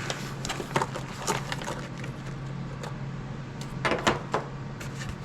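Light clicks and knocks of small parts being picked up and handled, a few scattered through, with a brief cluster of louder knocks about four seconds in, over a steady low hum.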